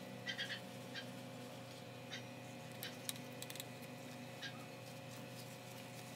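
Faint, scattered light clicks and ticks, the first cluster about a third of a second in, over a steady low hum.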